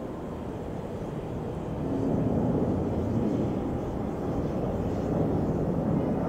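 Jet engines of a twin-engine airliner at takeoff power during lift-off and climb: a steady low rumbling noise that grows louder about two seconds in and then holds.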